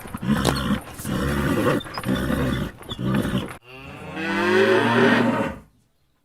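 A cow moos once, a long low call starting a little over halfway through and stopping shortly before the end. Before it come a few seconds of choppy animal sounds broken by sharp knocks.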